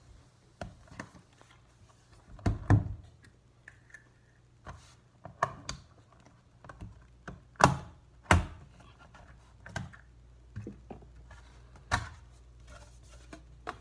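Irregular clicks and knocks of a MacBook Pro's aluminium case being handled as the laptop is closed and turned over on the bench, then its bottom cover pulled up with a suction cup and prised loose. The loudest knocks come about eight seconds in.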